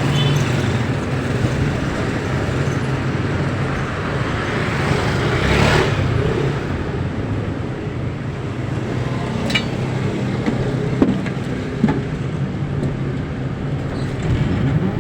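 A motor vehicle running along the road, a steady engine hum under road and traffic noise, with a louder swell about six seconds in and a couple of sharp knocks near the end.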